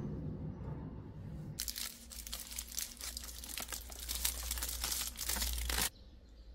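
Dense crinkling and crunching, close up, starting about a second and a half in and cutting off abruptly near the end.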